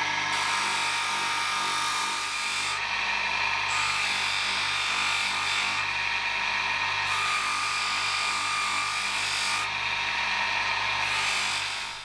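Electric bench motor spinning a buffing wheel, with a small steel knife part pressed against the wheel: a steady motor hum under the hiss of the part being polished. The sound stops abruptly at the end.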